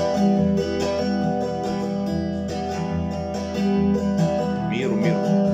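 Acoustic guitar strumming chords in a steady rhythm, the instrumental close of a song.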